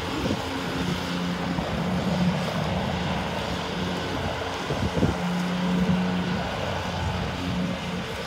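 Roadside background noise: wind rumbling on the microphone over road traffic, with a low hum that comes and goes twice.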